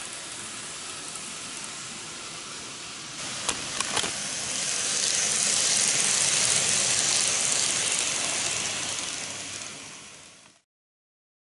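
N-gauge model train running on its track, a steady hiss of motor and wheels. A few sharp clicks come about three and a half seconds in, then the sound grows louder and brighter as the train passes close, and fades out near the end.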